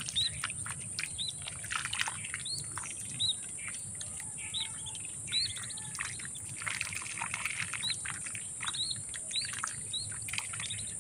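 Lesser whistling duck ducklings peeping: short, high chirps repeated irregularly, some in quick runs, with faint clicks and rustles.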